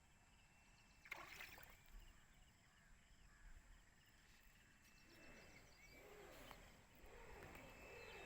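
Near silence: faint outdoor background, with a soft knock about a second in.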